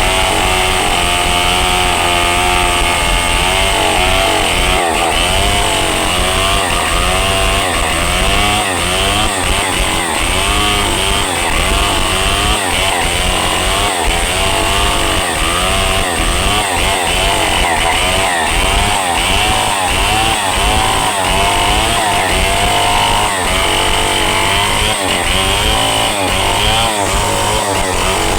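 Chainsaw cutting into the trunk of a large rain tree, running continuously at high revs, its engine pitch rising and falling over and over as the chain bites and frees in the cut.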